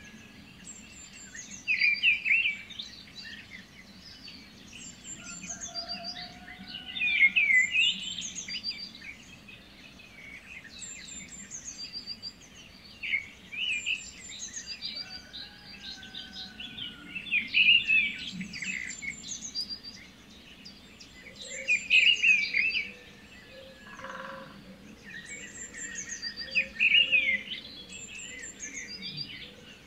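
Birds chirping and singing: short high chirps with louder bursts of song about every five seconds, over a faint steady background.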